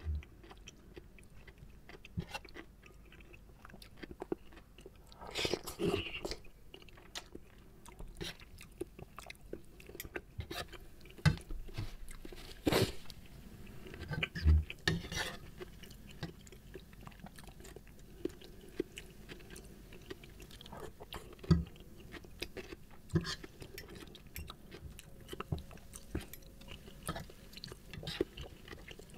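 Close-up mukbang chewing of soft, saucy seblak with macaroni and kwetiau noodles: wet chewing with many short, sharp mouth clicks. There are a few louder clicks and a brief rustly stretch.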